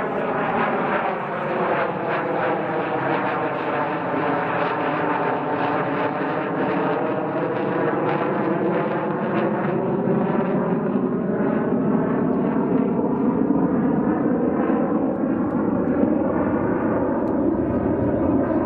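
Jet aircraft flying past overhead, its engine noise steady and loud, with a swishing sweep in pitch that falls and then rises again as it goes over.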